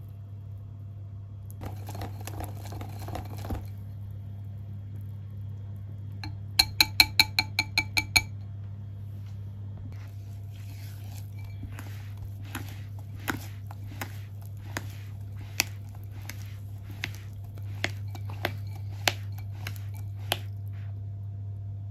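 Batter stirred in a glass bowl. Then, about seven seconds in, a wire whisk is tapped about eight times in quick succession against the glass rim, each tap ringing. After that a rubber spatula scrapes and knocks around the sides and bottom of the bowl, all under a steady low hum.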